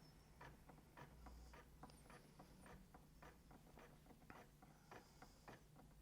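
Near silence with faint, irregular ticks, about two or three a second.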